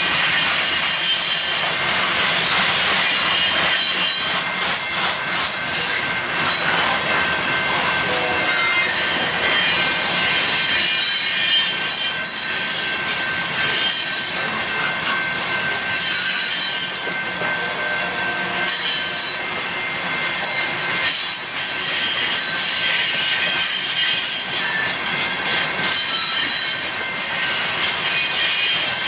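Freight train of covered hopper cars rolling steadily past close by: steel wheels running on the rail, with a continuous high-pitched wheel squeal over the rolling noise.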